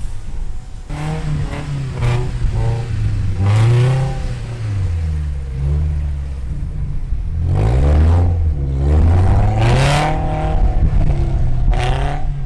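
Off-road truck engine revving repeatedly, its pitch rising and falling as the driver works the throttle, with several louder surges.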